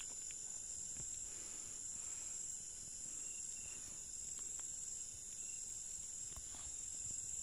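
Steady high-pitched chorus of night insects, crickets among them, with a few faint clicks.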